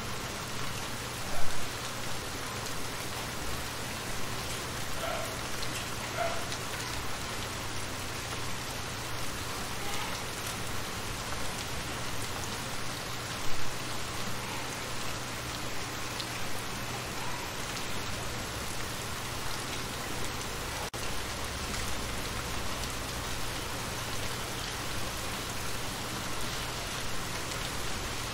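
Steady rain falling on shallow water, an even hiss dotted with small plinks of drops hitting the surface, and a couple of louder taps.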